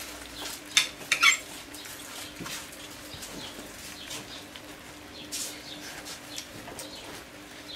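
Cutlery clinking and scraping on a plate while eating, with a few sharp clinks about a second in and lighter taps after.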